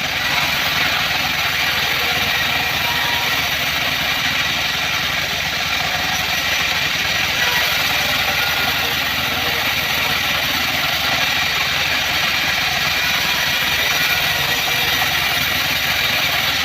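Band sawmill running with a steady, unbroken mechanical noise.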